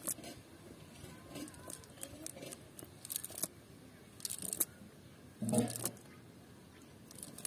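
Wet rustling and crackling of a muddy cast net being handled and pulled through the hands, in short irregular bursts, the loudest a little past halfway.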